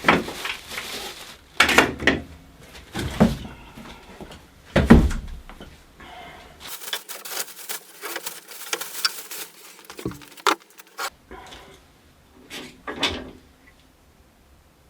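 Unboxing handling noise: packaging and loose bandsaw parts being lifted and set down, making a string of knocks and thuds, the loudest about five seconds in, followed by rustling and a few clicks.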